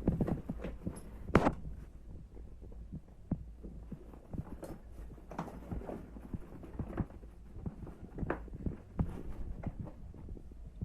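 Handling noise of a fabric travel duffel bag being moved and opened up: irregular soft knocks and brief rustles, the loudest about a second and a half in, over a steady low hum.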